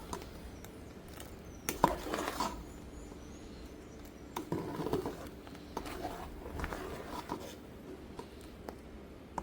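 Faint kitchen sounds: a few light clicks and knocks from pot and utensils, over a low steady hum.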